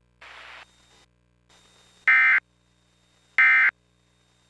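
Emergency Alert System end-of-message signal: short, loud bursts of shrill two-tone digital data (the SAME "NNNN" code), each about a third of a second long. Two bursts fall here, about 1.3 seconds apart, the first about two seconds in. They mark the end of the alert broadcast.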